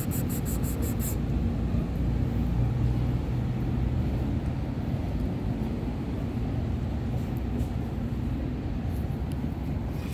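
Steady low rumble of motor traffic, with a faint engine hum. A quick run of high ticks sounds in the first second.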